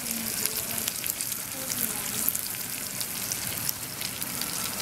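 Pieces of quail frying in oil in a skillet: a steady sizzle with many small scattered pops and crackles as the meat browns and crisps.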